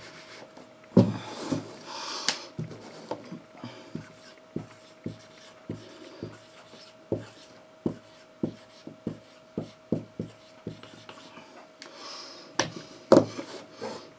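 Irregular light taps and clicks, a few breathy rushes of air, and a faint steady hum underneath.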